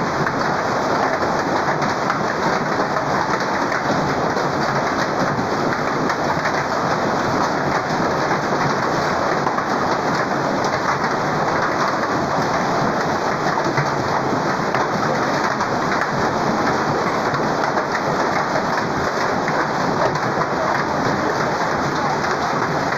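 Hail and heavy rain pelting down on the ground, a loud, steady, dense hiss of stones and drops that never lets up.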